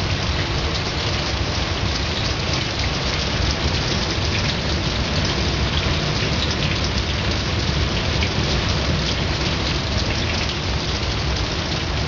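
Heavy rain falling steadily, with the patter of many drops hitting nearby surfaces.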